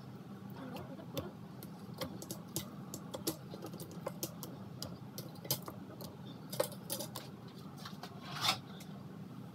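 Raw fish being picked out of a stainless steel colander and laid in an aluminium pot: scattered light clicks, knocks and rubs of fish against metal, with one longer scrape about eight and a half seconds in, over a steady low hum.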